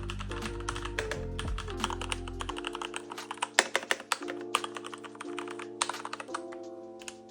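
Keys of a Keychron K8 mechanical keyboard being typed on: a quick, irregular run of key clacks.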